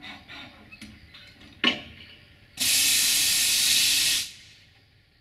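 A loud burst of compressed air hissing out of a 060-DA (LDE2100) diesel locomotive's air system for under two seconds, then stopping fairly abruptly. A single sharp knock comes shortly before it.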